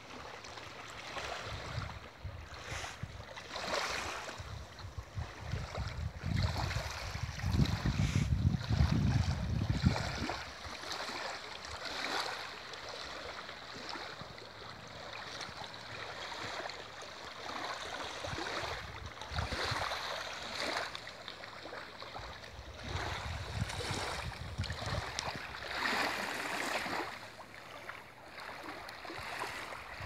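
Small sea waves lapping and washing against a rocky, sandy shore, the hiss swelling and fading every second or two. A low rumble, the loudest part, runs from about six to ten seconds in.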